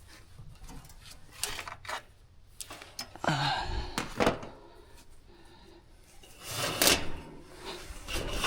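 Scattered clicks and metal knocks of hand tools working on a condenser fan motor as it is disconnected and loosened, with a short scraping rattle about three seconds in and louder knocks near four and seven seconds.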